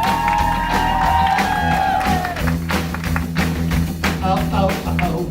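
Live rock band playing, with a steady drum beat, bass and guitar. A long, wavering note is held over the first two seconds or so.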